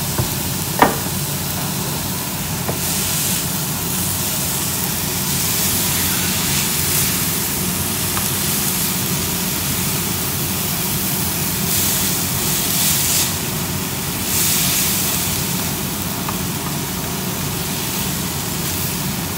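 Gourd vine shoots and garlic stir-frying in a hot pan: steady sizzling and hissing that surges several times as they are tossed, over a steady low hum. There is a sharp clink of the utensil against the pan about a second in.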